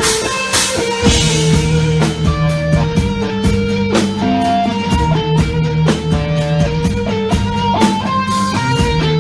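Rock band playing live: electric guitar with held notes over a drum kit keeping a steady, even beat.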